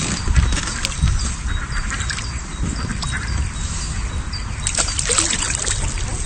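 Water splashing and dripping as a jack pike is lowered into the river and let go beside a float tube, with the loudest splashes about five seconds in. Ducks quack faintly in the first half.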